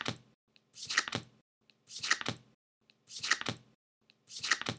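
A short crackling swish that repeats at a steady pace, about once a second, each one led by a faint tick, with silence between. It is a looping end-card sound effect.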